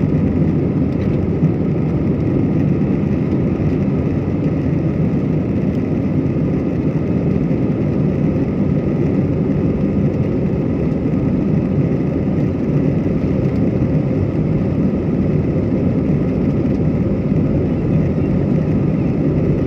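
Jet airliner engines and rolling noise heard inside the cabin as the plane moves along the runway: a loud, steady low noise with a faint steady whine above it.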